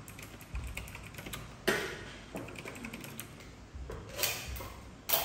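Scattered light clicks and taps of small objects being handled, with sharp clacks about one and a half seconds in and again near the end.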